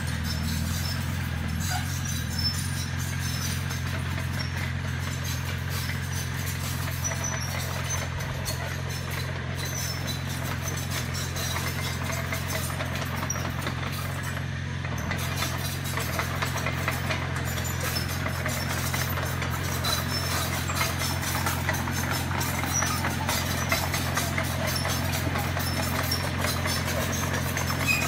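Crawler bulldozer's diesel engine running steadily as the machine travels, with the clatter of its steel tracks, which grows busier about halfway through.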